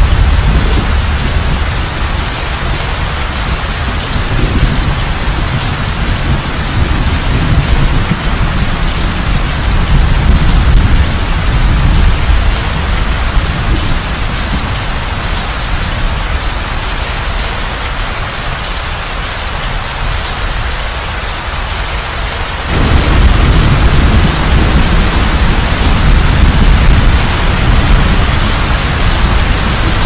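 Heavy, steady rain with deep rolling thunder rumbling underneath. The low rumble swells suddenly about three-quarters of the way through and stays loud.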